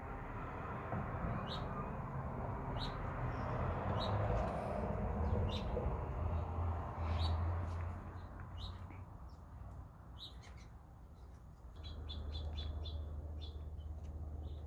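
Small backyard songbirds giving short, sharp chirps every second or two, with a quick run of chirps near the end. Under them runs a low rumble, loudest in the first half.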